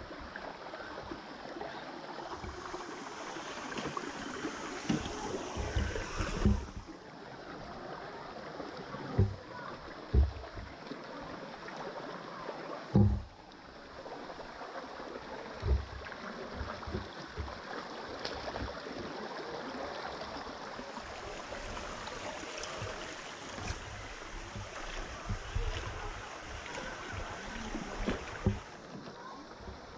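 Fast-flowing shallow stream rushing over rocks and splashing around the wheels of a wading RC crawler truck, with occasional low thumps.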